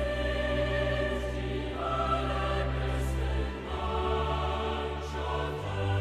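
Background music of slow, sustained chords that change about every two seconds.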